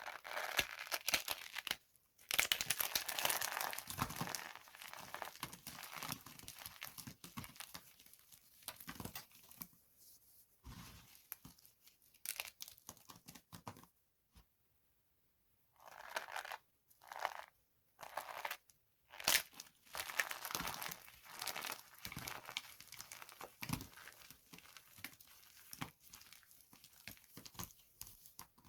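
Dry soap boxes being crushed, crackling and crunching in bursts with short pauses between them.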